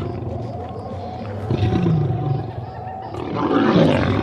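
Lion growling: a low, falling growl about a second and a half in, then a louder, rougher growl near the end.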